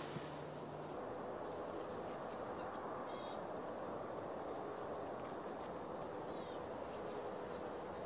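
Small songbirds giving short, high chirping calls now and then, including two brief buzzy notes about three seconds in and near seven seconds, over a steady outdoor background noise.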